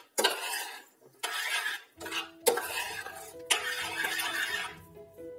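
A spoon stirring a thick pumpkin and apple purée in a stainless steel saucepan, scraping against the pan in three stretches, with two sharper knocks on the pan in the middle. Faint background music with held notes comes in about two seconds in.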